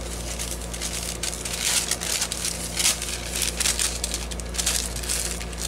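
Sheets of waxed deli paper crinkling and rustling as they are handled, folded and pressed down, in a string of irregular crackles.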